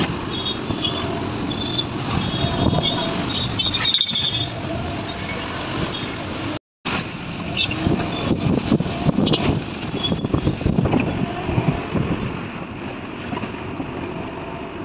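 Auto-rickshaw ride heard from inside the open cabin: its small engine running under steady road and traffic noise. The sound drops out for a moment about seven seconds in, then picks up again.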